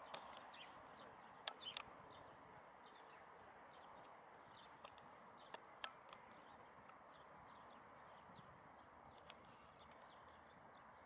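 Faint chirping of small birds, many short calls repeating over a quiet steady hiss, with a few sharp clicks, the loudest about six seconds in.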